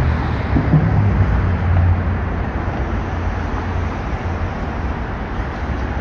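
Steady low rumble of outdoor background noise, a little louder in the first two seconds.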